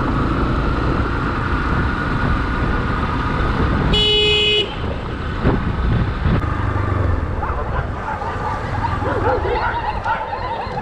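Yamaha XTZ 250 single-cylinder motorcycle running along the road, with a steady rumble of engine and wind noise. A vehicle horn honks once, briefly, about four seconds in.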